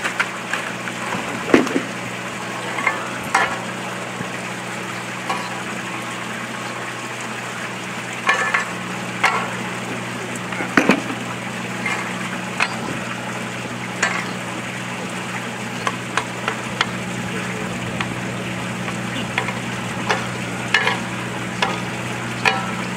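Loose Aquaphalt cold-patch asphalt mix tipped from a plastic bucket, then raked across the pavement with a steel garden rake: irregular gritty scrapes and rattles of the tines and aggregate on asphalt. A steady low hum runs underneath.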